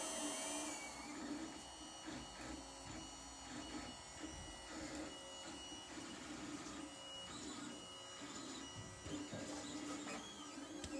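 Lulzbot TAZ 3 3D printer printing, its stepper motors whining in short moves. The whine starts, stops and changes pitch with each move, and rises and falls near the end.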